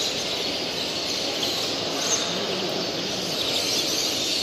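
Many caged songbirds chirping and calling at once, a dense unbroken chorus, over a low murmur of a crowded hall.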